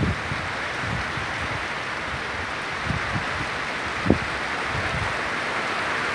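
Heavy rain falling steadily on open pond water and vegetation, an even hiss. A brief low knock about four seconds in.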